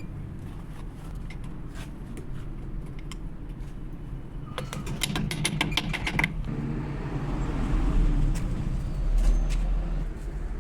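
Metal tool clicks during car repair work: a quick, even run of sharp clicks lasting under two seconds about halfway through, over a steady low rumble and scattered light clinks.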